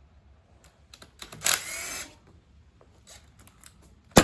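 Tool work on engine bolts: scattered metallic clicks, a short burst of tool noise lasting about half a second a second and a half in, and a sharp loud click at the end.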